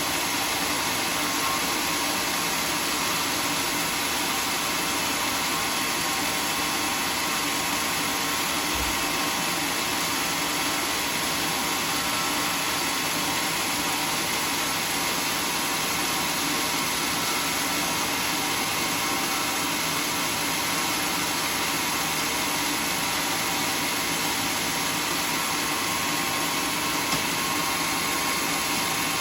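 Large sawmill saw running steadily, a constant, even machine noise with a faint steady whine.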